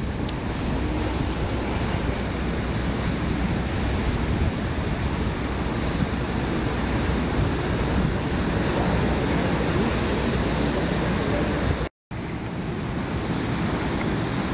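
Ocean surf breaking on the beach with wind on the microphone, a steady wash of noise. The sound cuts out for a moment about twelve seconds in.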